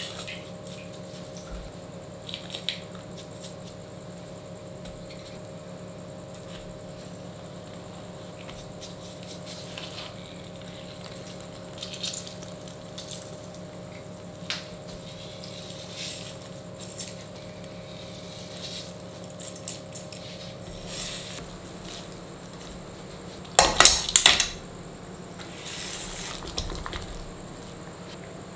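Dishes and kitchen utensils knocking and clinking now and then over a steady hum, with a brief loud burst near the end.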